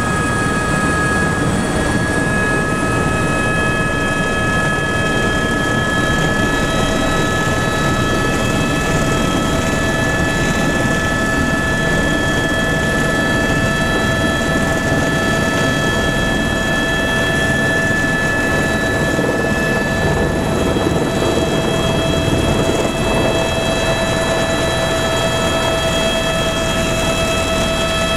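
Tour helicopter's turbine engine and rotor running steadily, heard from inside the cabin: loud, even noise with several steady high whining tones over it.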